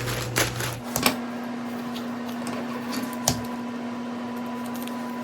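A few light clicks and taps from a handbag being handled, its hardware and leather knocking softly, over a steady low electrical hum.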